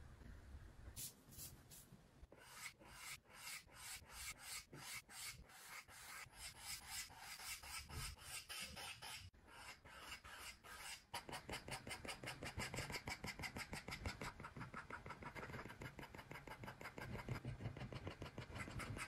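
Stylus tip scratching across an iPad screen in short repeated drawing strokes, a few a second at first, then a faster, even scratching through the later part.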